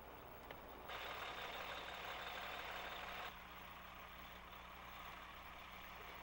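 Semi-truck diesel engine running low and steady as the tractor backs its trailer up to a loading dock, with a steady hiss from about one second in that cuts off abruptly about two seconds later.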